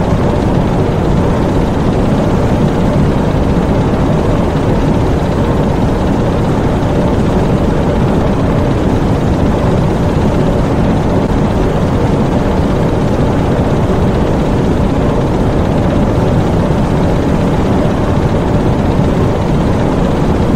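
Diesel engines in a U-boat engine room running steadily: a loud, even, unchanging drone, heaviest in the low end.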